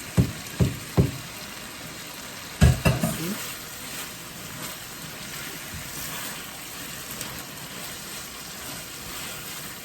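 Vegetable sauce sizzling in a pan while being stirred, with a utensil knocking against the pan three times in the first second and a few more times around three seconds in.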